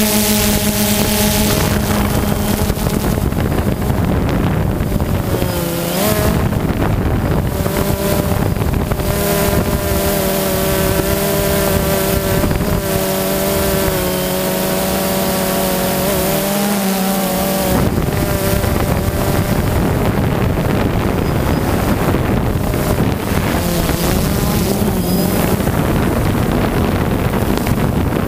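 Multirotor drone's electric motors and propellers buzzing, several steady tones whose pitch rises and falls as the motors change speed, with wind noise on the microphone.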